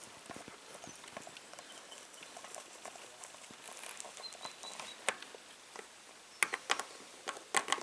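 Small plastic Littlest Pet Shop figures tapping and clicking on a tabletop as a hand hops them along. The taps come irregularly, with a few louder ones in the second half.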